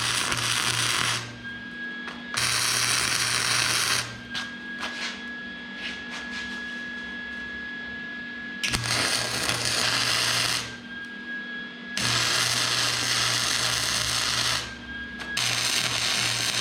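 Electric welder running a series of short welds: about five bursts of arc noise with a steady hum, each lasting one to two and a half seconds, with brief pauses between and the longest pause near the middle.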